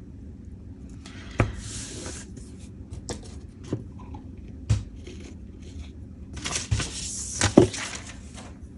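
Paper being handled on a tabletop: a magazine page rustles and slides as it is lined up and pressed down, with about five light knocks against the table.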